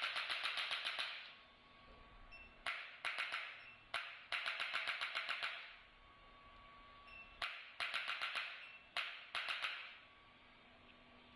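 Handheld percussive chiropractic instrument firing in repeated short runs: each run is a sharp click followed by a rapid train of about eight to ten clicks a second, lasting about a second, and a new run comes every few seconds.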